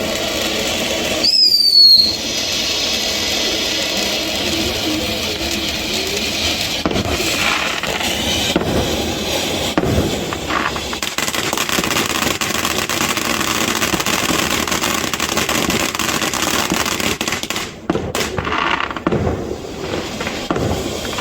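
Firework fountains spraying with a steady hiss, with a short whistle falling in pitch about a second and a half in.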